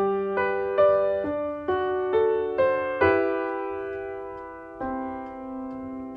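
Background music on a keyboard with an electric-piano sound: a run of struck notes about two a second, then a held chord that is struck again and fades away near the end.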